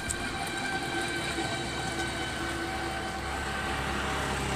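A steady mechanical drone with several held tones over a rushing noise, at an even level throughout.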